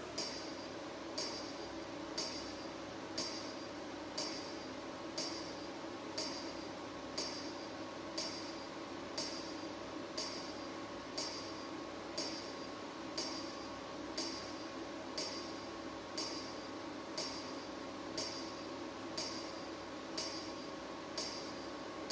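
Full-spectrum pulsed UV disinfection robot firing its lamp about once a second, each pulse a sharp click with a brief high ringing, over a steady hum.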